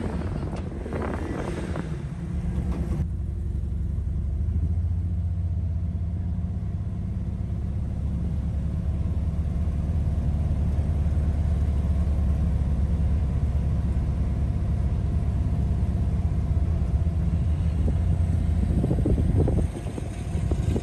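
A car's engine running steadily at low cruising speed, a continuous low rumble with road noise, heard from inside the car. The sound is busier for the first few seconds before settling into the steady drone.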